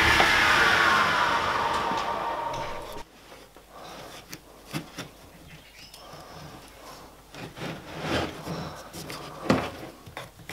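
Table saw blade spinning down after a cut, a falling whine that dies away about three seconds in. After that come light knocks and rubs of plywood pieces being handled on a bench.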